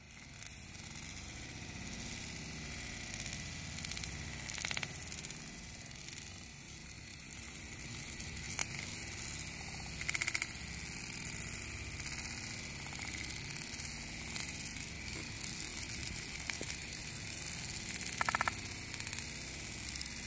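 Bonfire of branches burning: a steady low roar with hiss over it, broken by a few sharp crackling pops of the burning wood.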